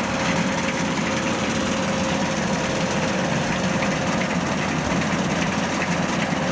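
Rice combine harvester engine running steadily under load as it works a field, with a thin steady whine over the engine noise.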